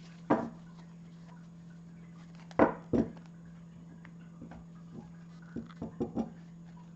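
A few short, sharp taps and knocks: one near the start, two louder ones under half a second apart in the middle, and a quick run of small ones near the end, over a steady low hum.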